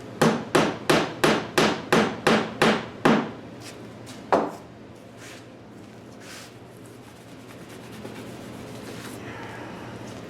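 Hammer driving glued wooden pegs into a breadboard end: a quick run of about nine sharp taps, roughly three a second, then a single tap about a second later.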